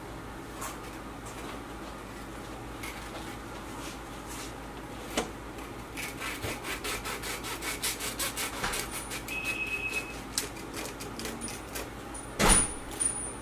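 A knife sawing back and forth through the crusty top of a loaf of freshly baked beer bread, in quick even strokes of about four or five a second through the middle, followed by one sharp knock near the end.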